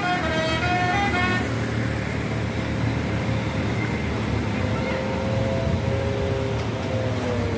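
Bus telolet horn (Basuri multi-tone air horn) playing a quick melody of stepping notes, cutting off about a second and a half in, then the steady rumble of bus engines and road traffic.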